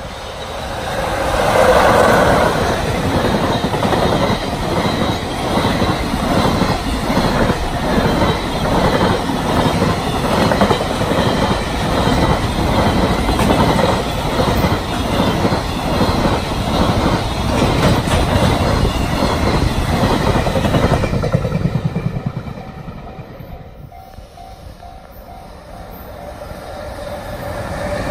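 Freight train passing through a level crossing at speed. The locomotive goes by about two seconds in, then a long run of wagons clatters quickly over the rail joints and dies away about 21 seconds in. A crossing alarm then rings faintly, and the next train comes up loud near the end.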